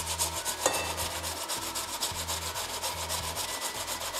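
Raw potato grated by hand on a stainless-steel box grater: quick, even rasping strokes, several a second.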